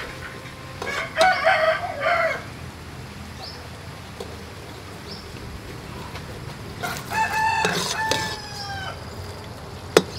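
A rooster crowing twice, once about a second in and again around seven seconds in, each crow a pitched call that falls away at the end. A single sharp click just before the end.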